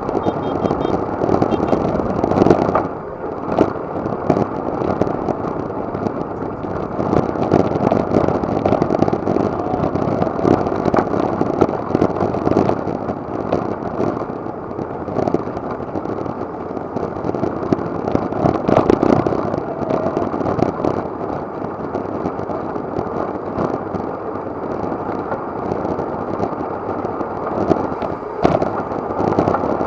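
Wind rushing and buffeting over an action camera's microphone during a bicycle road race ride, a steady rush with frequent crackling pops, mixed with road and traffic noise.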